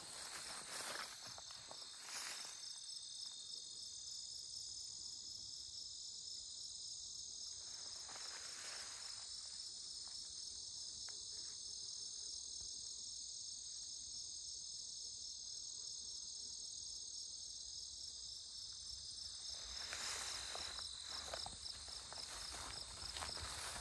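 Crickets and other late-summer meadow insects singing in a steady chorus of overlapping high trills, one of them pulsing evenly. Footsteps swish through grass at the start, briefly about eight seconds in, and again near the end.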